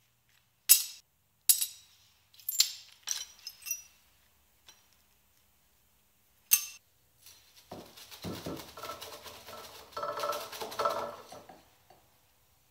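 Shards of broken sheet glass clinking sharply, about six separate clinks over the first several seconds. Then the pieces are swept and scraped across the glass and table for about four seconds, ending shortly before the end.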